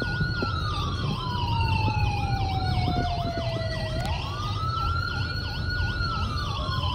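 Two emergency siren sounds play at once inside a moving car. A slow wail rises quickly, holds, then falls off gradually, once about every four seconds; under it runs a fast yelp warbling about three times a second. Low road rumble from the car lies beneath both.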